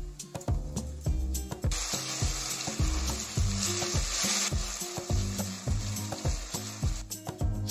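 Onions and ginger-garlic paste sizzling in hot oil in a kadhai while being stirred with a slotted spoon. The sizzling starts about two seconds in, peaks midway, and stops near the end. Background music with a steady beat plays throughout.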